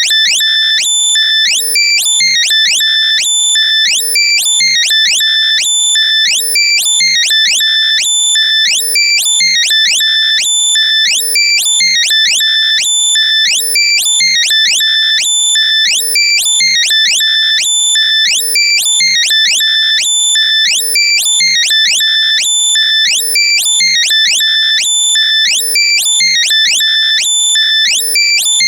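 Loud, heavily compressed synthesized locator sound for finding lost earbuds: rapid rising chirps over steady high-pitched beeps, the pattern repeating every couple of seconds at a constant level.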